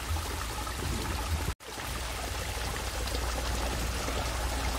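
Small irrigation stream flowing and trickling: a steady rush of water. The sound cuts out for an instant about one and a half seconds in.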